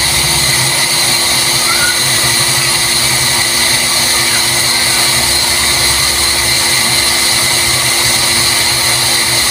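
Electric water pump running steadily with a motor whine and a low rumble that comes and goes a few times. It is now drawing water continuously, the air having been purged from its suction line.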